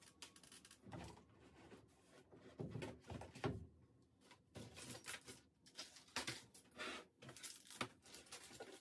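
Small objects on a desk being picked up, moved and set down: irregular knocks, clicks and rustling, with a few duller thumps in the first half.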